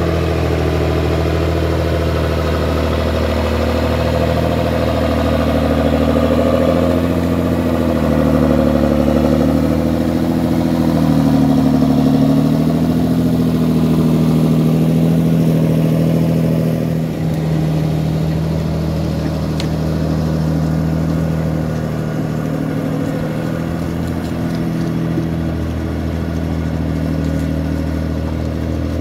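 Engine of a homemade log forwarder driving loaded over rough ground, running steadily. Partway through its note rises and it gets louder, then it eases back to a lower, even note.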